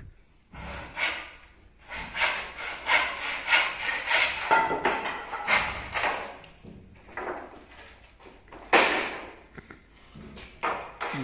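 Pine brandering battens being handled: wood scraping and knocking against wood, in a run of quick strokes for several seconds, then one louder scrape near the end.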